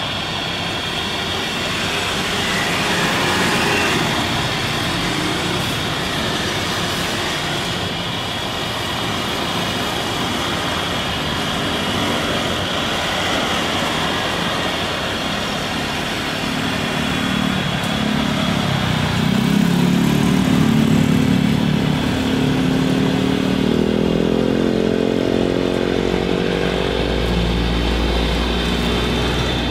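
Boeing 787 Dreamliner on final approach, its jet engines giving a steady roar with a high whine. Over the last ten seconds a deeper drone rises in pitch and grows louder, with a low rumble, as the jet passes low just before touchdown.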